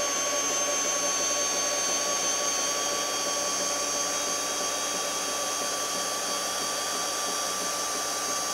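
Cordless drill running at a steady speed, cranking the milling machine's knee elevating screw to lower the knee and table. The drill gives an even, high whine throughout.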